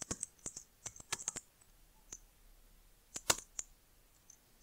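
Computer keyboard keystrokes as an IP address is typed into a terminal command. There is a quick run of clicks in the first second and a half, a single keystroke about two seconds in, and a louder cluster a little after three seconds as the command is entered.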